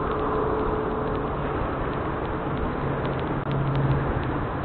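Steady outdoor rumble and hiss with a low hum, a few faint ticks near the end.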